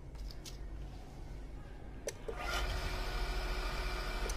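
A click about two seconds in as a water pump motor is switched on through a Jepro water level controller's starter, then the motor runs with a steady whine of several tones. It cuts off with a click as the controller's red stop button is pressed.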